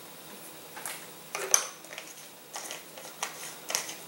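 A handful of small clinks and taps from a thin metal rod and a small bottle of CA glue accelerator being handled and capped, the loudest about a second and a half in.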